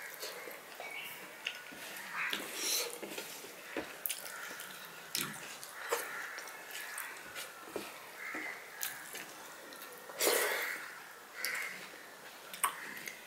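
Close-miked mukbang eating sounds: a person chewing a mouthful of rice and curry with wet smacking clicks and breathing through the nose, while fingers squish and mix rice with curry and dal on a steel plate. One louder sound stands out about ten seconds in.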